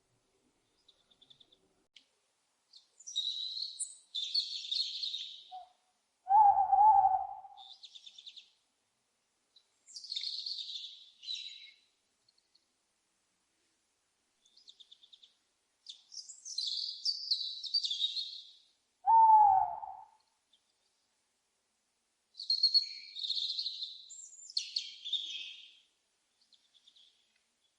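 Owl calls: two loud low hoots, each with a slight fall in pitch, about six and nineteen seconds in, between four bouts of high, noisy bird calls.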